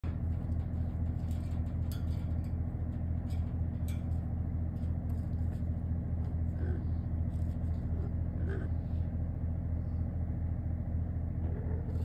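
A steady low machine-like hum throughout, with scattered short clicks and crunches of an Amazon parrot's beak picking up and cracking seeds.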